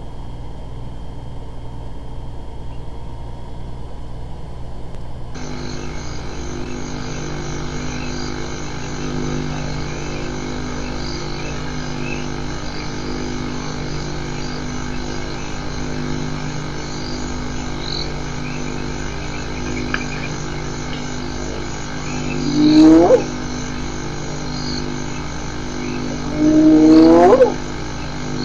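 Spotted hyena giving two loud whoops about four seconds apart near the end, each call rising sharply in pitch. A steady low hum runs underneath.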